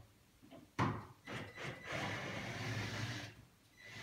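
Screws being taken out of the back of an antique pine wardrobe: a sharp knock about a second in, a few lighter knocks, then a steady rasping noise that stops and starts again near the end.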